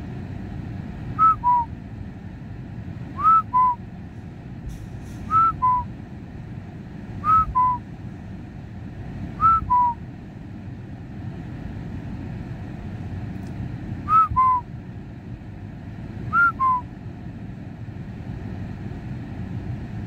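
A person whistling a clear two-note call, a higher note then a slightly lower one, seven times at about two-second intervals with a longer pause in the middle. Under it runs a steady low rumble inside the car.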